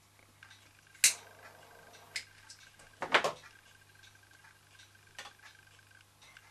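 Sharp clicks and clinks of metal handling around a toy steam engine: one loud click that briefly rings, then a lighter struck in a quick cluster of strikes about three seconds in to light the engine's burner, and a few light clicks as the burner tray is slid under the boiler.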